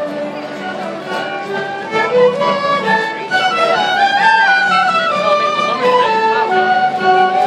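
Amateur folk band playing a tune together, fiddles and flutes carrying the melody over the rest of the band. The music grows louder about two seconds in and again just after three.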